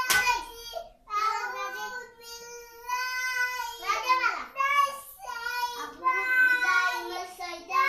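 A young child singing in a high voice, holding long notes in a simple tune, with one sharp knock right at the start.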